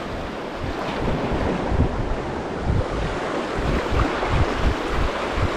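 Sea waves washing on the shore, with wind buffeting the microphone in irregular low rumbles.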